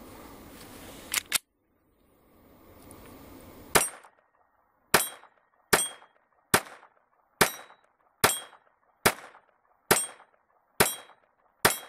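Ruger LC9 pistol with a Twisted Industries .22 LR conversion firing a 10-round magazine: ten sharp shots at a steady pace of a little more than one a second, starting about four seconds in. Two sharp cracks close together come about a second in.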